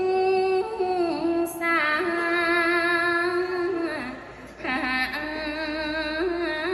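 A woman chanting Khmer smot, the Buddhist-style sung recitation, in long held notes with wavering ornaments, taking a breath about four seconds in before carrying on.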